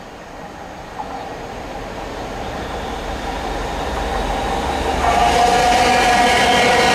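Freightliner Class 66 diesel locomotive with its two-stroke V12 engine hauling a container train through the station, engine and wheels growing steadily louder as it approaches. The sound jumps in loudness about five seconds in as the locomotive draws close.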